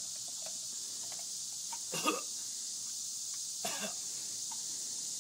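A person coughing twice, about two seconds in and again near the four-second mark, while chugging a drink from a can, over a steady background hiss.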